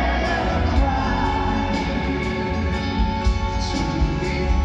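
Live pop-rock band playing a slow song with lead and backing vocals over a steady drum beat and a heavy bass. Recorded from the crowd in a large arena.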